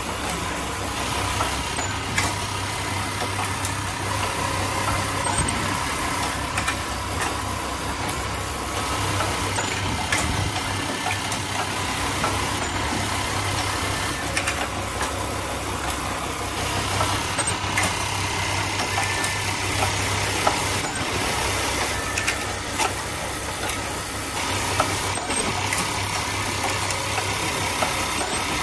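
Double-head automatic elastic band joining machine running: a steady mechanical hum with scattered short clicks from its JUKI sewing heads and pneumatic feed cylinders.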